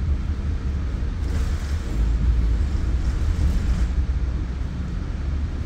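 Steady low rumble of a Bombardier MultiLevel commuter train running on the rails, heard from inside the coach.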